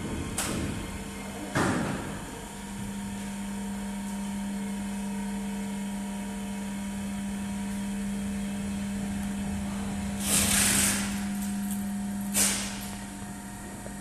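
Two electric linear actuators running together, their motors and gearboxes giving a steady hum as the rods slowly retract. A couple of sharp knocks come near the start and another about three-quarters of the way in, with a brief rustling burst just before it.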